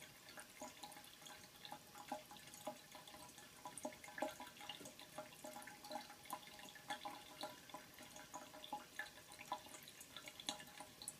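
Faint thin stream of tap water falling into a bathroom sink, broken by quick, irregular little splashes and drips, several a second, as a cat laps at the stream with its tongue.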